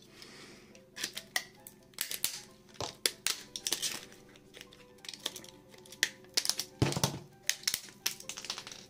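Irregular sharp clicks and snaps of a cheap smartphone's small plastic parts being pried apart and handled, over quiet background music.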